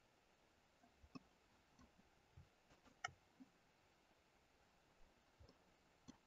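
Near silence broken by a few faint, short computer mouse clicks. The two clearest come about a second in and about three seconds in.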